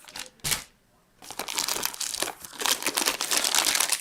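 Packaging crinkling and rustling as it is handled: a short sharp rustle about half a second in, then a longer stretch of dense, irregular crinkling.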